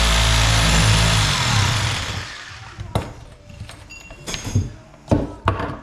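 Power saw running steadily while cutting out an old kitchen faucet that would not come off from underneath. It is switched off and winds down about a second and a half in, followed by a few sharp knocks and clanks.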